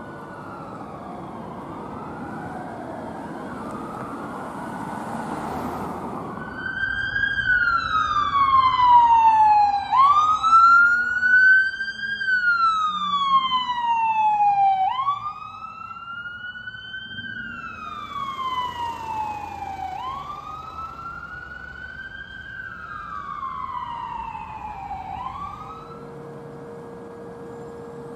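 Emergency vehicle's electronic siren on a slow wail, each rise and fall taking about five seconds, over a low rumble of traffic. Several wails overlap at first; then one grows loud and fades again.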